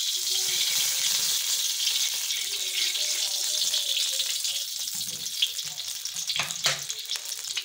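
Cooking oil sizzling in a hot iron karahi that was heated dry: a steady hiss with a few sharp pops in the second half.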